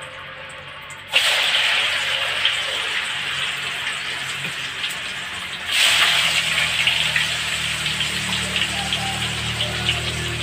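Tofu going into hot oil in a wok and sizzling. The sizzle starts suddenly about a second in and flares up louder again about six seconds in as more pieces go in, then keeps frying steadily.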